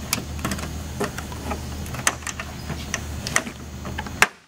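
A 9/32 nut driver turning out a small bolt in a pickup's plastic fender well: irregular clicks and scrapes of metal tool on bolt and plastic, over a steady low hum. The sound cuts off suddenly near the end.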